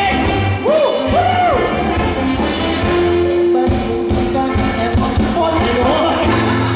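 Live band music with drums and keyboard and a steady low beat. A voice sings over it, with sliding pitch about a second in.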